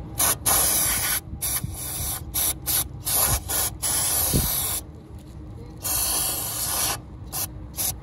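Aerosol can of CRC throttle body cleaner spraying through its red extension straw into a throttle body, dissolving varnish and gunk from the bore and throttle plate. It comes as a string of short hisses, with longer sprays of about a second around four and six seconds in.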